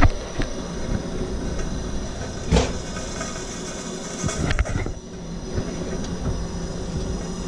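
Plumber's soldering torch burning with a steady flame noise while a copper fitting is heated, with a few sharp knocks and clunks from handling the pipework.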